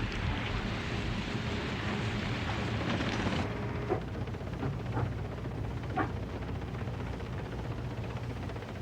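Steady shipboard background noise, a rushing hiss like wind and sea over a low steady hum. About three and a half seconds in it changes abruptly to a duller hum with a few faint knocks.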